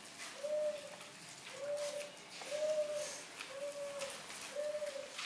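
Bible pages being turned and rustled, with a soft, coo-like hooting tone repeating about once a second behind them.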